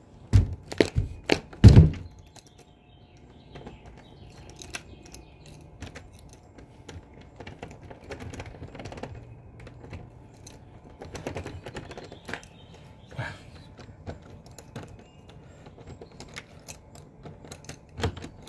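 A run of sharp knocks about the first two seconds as the shed door is worked shut, then light clicks and small rattles of a key being turned and pulled in the shed door's lock, a lock that is reluctant to release the key, with one more knock near the end.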